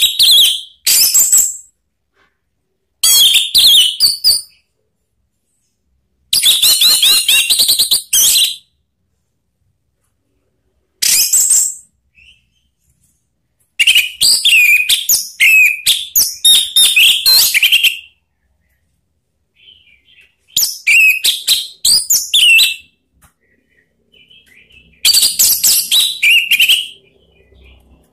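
Caged orange-headed thrush singing loud, full-voiced song in separate phrases of high whistles and fast, varied chattering. There are about eight phrases, from under a second to about four seconds long, with short silent pauses between them.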